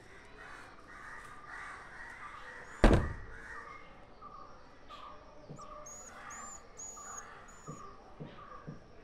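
Birds calling over and over with short harsh notes, joined by a few high thin chirps about two-thirds of the way through. A single sharp loud knock lands about three seconds in.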